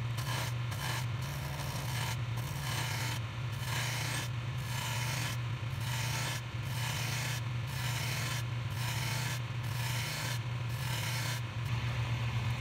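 A wood lathe turning a maple column while a hand-held turning tool cuts along it to rough it into a cylinder. A hissing, rasping cutting sound runs over a steady low hum, breaking off briefly about once a second as the tool is moved.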